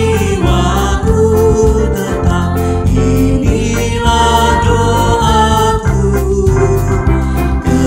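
Mixed voices, a man and two women, singing a hymn in Indonesian together over a steady, rhythmic instrumental accompaniment.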